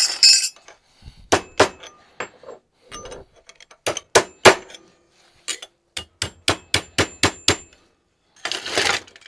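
Small hammer striking the metal finger plates of a homemade clawed glove, a series of sharp metallic taps: a few spaced out at first, then a quicker run of about four a second. It is loosening the riveted finger joints so they pivot more freely. A brief scraping of the metal pieces being handled comes near the end.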